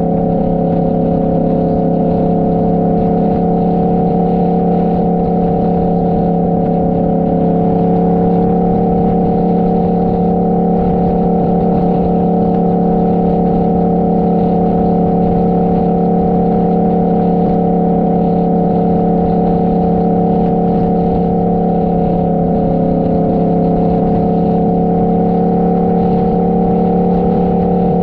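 Motorcycle engine running at a steady cruising speed, its pitch holding nearly level, with wind noise on the microphone.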